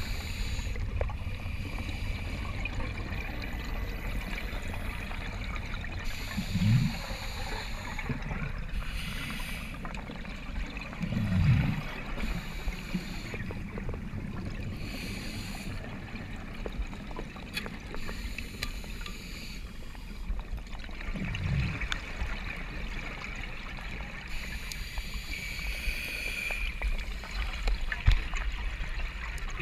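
Underwater noise picked up by a camera: a steady low rumble and hiss of moving water, with a few brief louder swishes.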